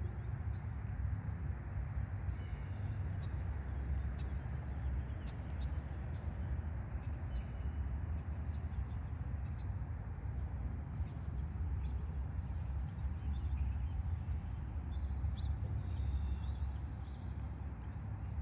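Outdoor background after the siren has stopped: a steady low rumble, with small birds chirping now and then.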